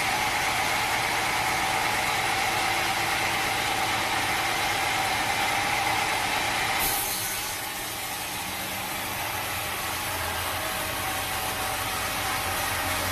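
Sawmill machinery running steadily with a high whine. About seven seconds in the sound changes abruptly, a short hiss and then a quieter, lower steady hum.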